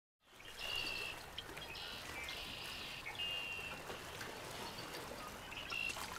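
Steady ambient background noise, a hiss like outdoor ambience, with several short high-pitched chirps scattered through it. It starts abruptly after a moment of dead silence.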